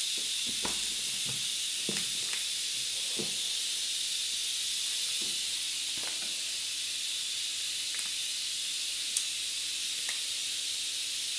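A cat crunching dry kibble from a plate: faint, irregular crunches and clicks over a steady high hiss.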